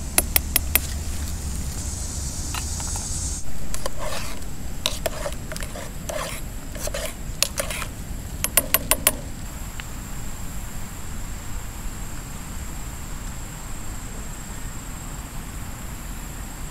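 Metal utensil clinking against a metal cooking pot: a quick run of light taps at the start, scattered clinks through the middle, and another quick run of four or five taps about halfway through. A steady high insect trill carries on through the second half.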